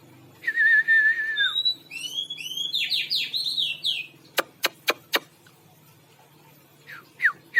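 Caged songbird singing: a wavering whistled note, then a run of rapid descending notes, four sharp clicks, and short falling chirps near the end. The song comes through clear, without the 'kik' cough the bird had after its moult.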